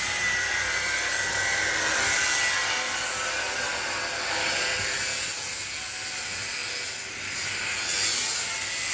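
A pipe being cut: a steady, hissing cutting noise that dips briefly about seven seconds in.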